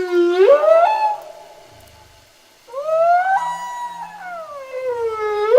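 Long animal calls that glide up and down in pitch. Two overlap in the first second; after a short lull, one rises sharply about two and a half seconds in and slides slowly down, and another starts sweeping up near the end.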